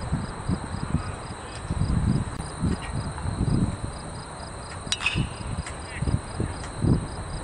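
Insects chirping steadily in a pulsing rhythm of about four a second, under a low uneven rumble. About five seconds in, a sharp ping of a metal bat hitting a pitched baseball, with a brief ring.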